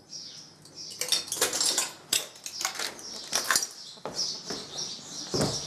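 Footsteps crunching over debris and broken material on a floor, a quick irregular run of sharp cracks and scrapes.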